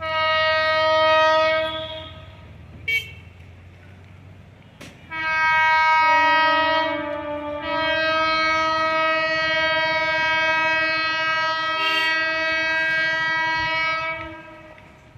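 Indian Railways train horn: a blast of about two seconds, then after a short pause one long blast of about ten seconds, with a low rumble underneath.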